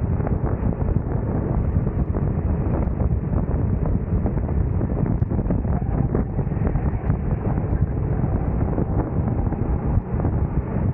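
Wind buffeting the microphone of a go-kart's onboard camera at racing speed, mixed with the noise of the kart's engine, steady and loud throughout.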